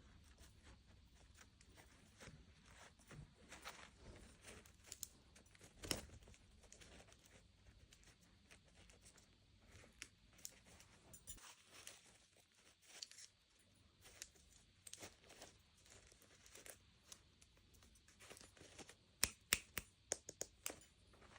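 Toy packaging being torn open and crinkled by hand, with scattered soft rustles and small clicks and a quick run of sharp clicks near the end.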